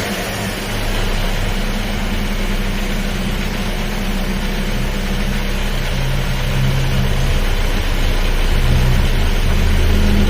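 Mazda 323 Familia engine idling steadily just after starting. Its fan belt runs without squealing now that the belt and pulley grooves have been dressed with dielectric grease.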